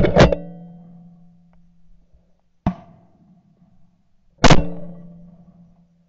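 Shotgun shots from a Beretta A300 Ultima semi-automatic, recorded by a barrel-mounted camera: a loud shot with a second sharp crack right after it at the start, a fainter crack about two and a half seconds in, and another loud shot about four and a half seconds in. Each is followed by a short ringing tail.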